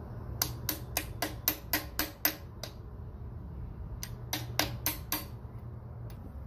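Small hammer striking a 10 mm socket to drive a new pilot bushing into the end of a Nissan KA24DE crankshaft, metal on metal. A run of about nine quick taps at roughly four a second, a pause of over a second, then about six more.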